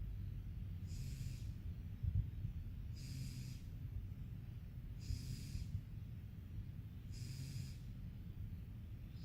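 Sleeping cat snoring, a soft wheezy breath about every two seconds with a thin high whistle in each. A brief low bump comes just after two seconds in.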